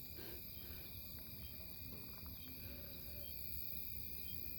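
Steady chorus of crickets and other insects, several high-pitched trills going at once, with a faint chirp repeating now and then.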